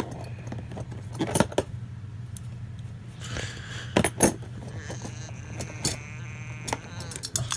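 Metal hand tools clicking and clattering against a moulded plastic tool-kit tray as they are set into their slots, with a few sharp knocks among lighter rattling, over a steady low hum.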